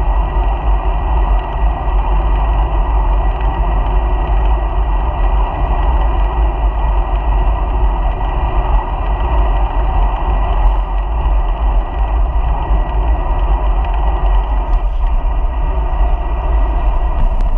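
Steady rush of wind and tyre noise from a bicycle being ridden, picked up by a camera mounted on the bike, with heavy low wind rumble on the microphone.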